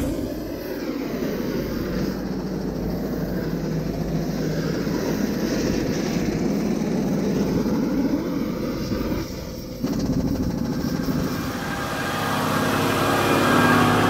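Heavy diesel truck engine running at idle, a steady low rumble.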